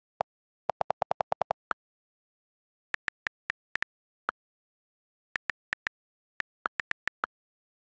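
iPad on-screen keyboard click sounds, recorded straight from the device with silence between keystrokes. First comes a quick run of lower-pitched clicks as the delete key repeats to erase the old title. Then come single, higher-pitched letter-key clicks at a typing pace, with an occasional click of a slightly different pitch for the space bar.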